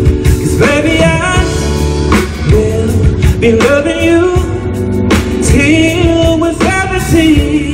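Live band playing a slow pop ballad through stage speakers, with electric guitar, bass and drums under a held, gliding sung melody.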